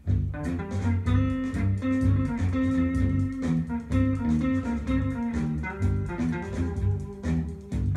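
Guitar-led rock track with electric guitar and bass, played back in the room through a pair of Graham Audio Chartwell LS6 two-way speakers with their treble switch set flat.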